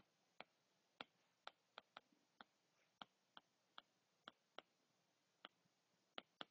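Faint, irregular clicks, about two a second, of a stylus tapping a tablet screen during handwriting.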